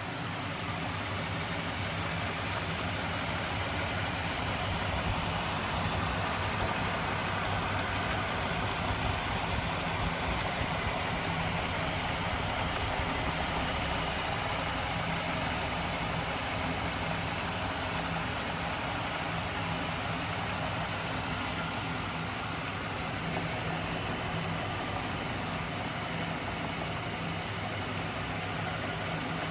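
A homemade magnet-coupled machine running: its 12 V DC electric motors and spinning magnet wheels and shafts make a steady mechanical running sound with a low, even hum.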